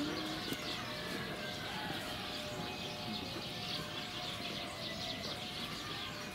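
Small birds chirping in the background: a steady scatter of many short, high calls, with no single call standing out.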